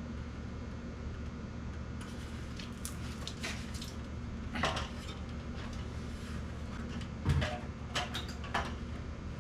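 Metal tools and parts clinking and knocking as they are handled, several short sharp clicks with the loudest a knock about seven seconds in, over a steady low hum.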